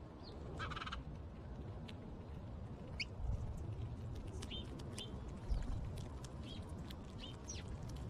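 House sparrows bathing in a stone birdbath, splashing water and fluttering their wings: many quick small splashes and flicks. Short bird chirps come through it, several in the second half, over a low steady rumble.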